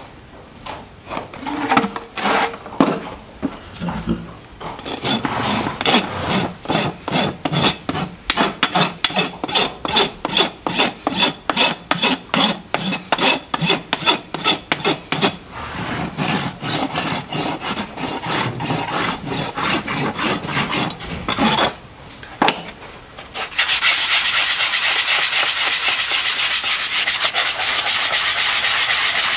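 A farrier's rasp filing a horse's hoof in quick, even strokes, after a few scattered strokes at the start. Near the end the strokes give way to a steady, continuous rasping noise.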